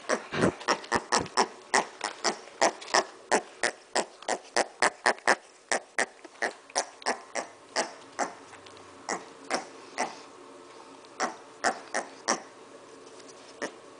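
A micro pig grunting and snuffling in short, quick puffs, about two or three a second, then more sparsely after about eight seconds.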